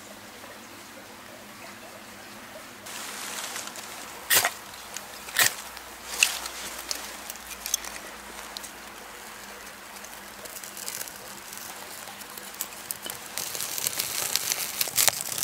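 A ferro rod is scraped with a striker three times in quick succession about four to six seconds in, throwing sparks onto tinder. Near the end a freshly lit kindling fire crackles.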